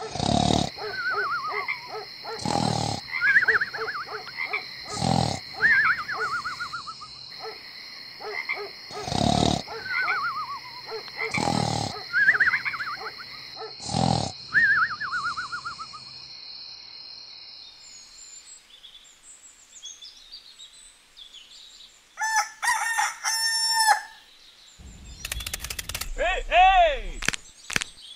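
Cartoon snoring sound effect, repeating every two to three seconds: a harsh snort, then a falling whistle, over a steady high hiss. It stops about halfway through. Near the end come a few short comic sound effects with sliding pitches.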